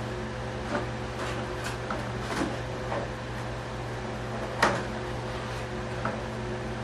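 Bench handling noises over a steady electrical hum: a scattering of light taps and rustles as hinge tape and foam airframe parts are worked, with the sharpest tap a little past halfway.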